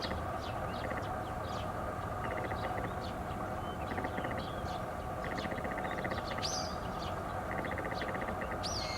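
Male garganey giving its dry, rapid rattling call in several short bouts, mixed with higher chirps and whistles from other birds over a steady background hum.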